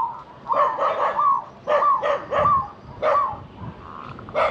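A dog barking repeatedly, about eight short barks in irregular bunches.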